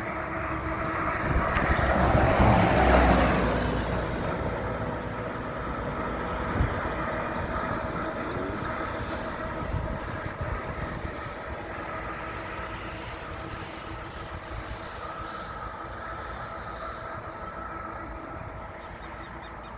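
Intercity coach passing on a highway, loudest about two to three seconds in, then slowly fading as it moves away, with a steady hum underneath.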